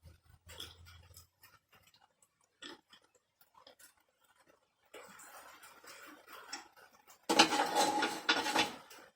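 Scattered light clicks and knocks of metal parts and tools being handled. Then, a little past seven seconds in, comes a loud grating, rattling clatter that lasts about a second and a half, the loudest thing here.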